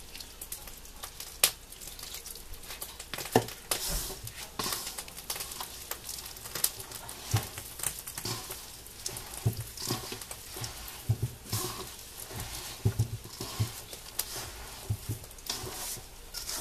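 Hand kneading and squeezing wet, crumbly dough of tapioca starch and grated cheese in a metal bowl: irregular soft pats and short knocks.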